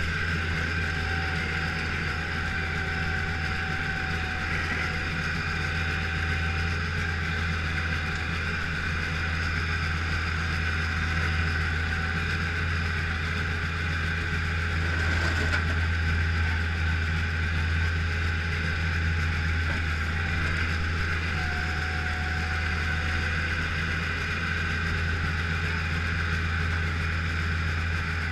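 Bobcat skid-steer loader's diesel engine running steadily while pushing snow, heard from inside the cab.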